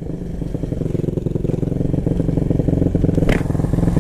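Supermoto motorcycle engine idling steadily, fading in and growing louder. A short hiss sounds near the end.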